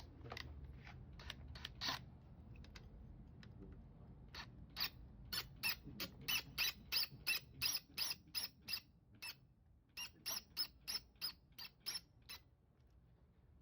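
A hand tool at work, giving a quick, even series of short, squeaky clicks, about two or three a second for several seconds, with a few scattered clicks just before.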